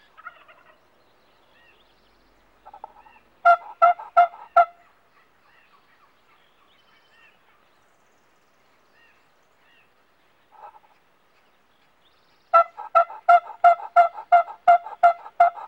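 A series of wild turkey yelps: four sharp yelps about three and a half seconds in, then a long, evenly spaced run of yelps, about three a second, from about twelve and a half seconds in. Fainter short calls come between them.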